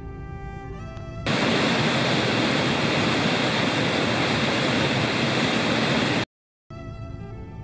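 Background music with held notes for about a second, then the loud, steady rush of the Schüss torrent foaming around a boulder in the Taubenloch gorge. The water sound cuts off suddenly near the end, and after a short gap the music returns.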